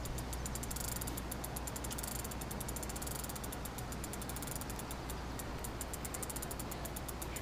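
Fishing reel clicking fast and evenly as the line is cranked in on a hooked sturgeon, with a short break about five seconds in, over a steady low rumble.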